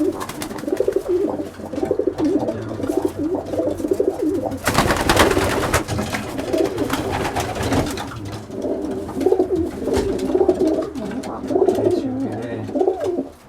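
Racing pigeons cooing repeatedly in a loft. About five seconds in there is a loud rustling flurry that lasts a second or two.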